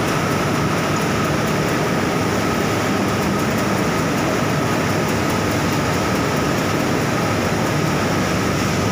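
Steady industrial machinery noise of a steel plant's continuous casting bay, running without a break, with a faint high steady whine through it.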